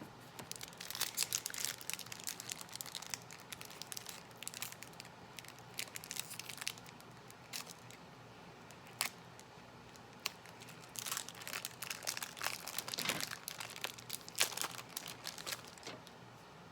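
Foil Pokémon booster pack wrapper crinkling in irregular bursts of crackles as it is handled and opened.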